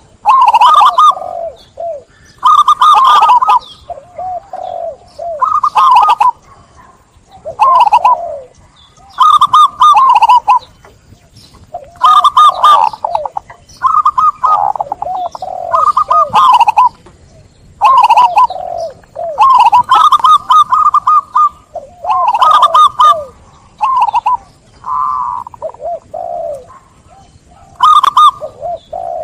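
Several zebra doves (perkutut) cooing. Each gives a phrase of quick, chuckling coo notes, about one phrase every two seconds, and the phrases sometimes overlap at different pitches as the birds answer one another.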